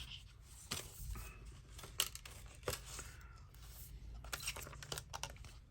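Small clicks, taps and rustling of a phone, tools and a replacement part's packaging being handled on a repair bench.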